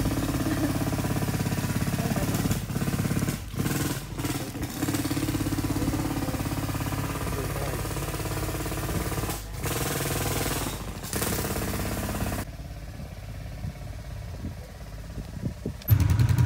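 ATV engines running with a rapid, even pulse. The sound drops quieter about twelve seconds in, then a nearby ATV engine idles loudly near the end.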